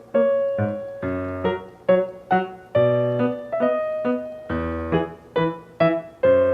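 Background music: a piano or electric piano playing a light melody of separate struck notes, each fading before the next.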